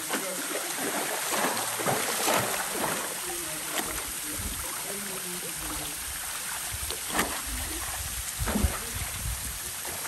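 Shallow river water splashing and sloshing as hands scrub and rinse a wire grill rack, over the steady rush of the waterfall stream.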